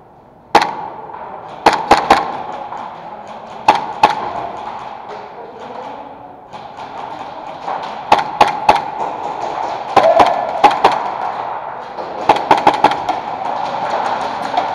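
Airsoft guns firing during a game in a large echoing hall: irregular sharp cracks, some single and some in quick runs of two to four, with a fast cluster near the end.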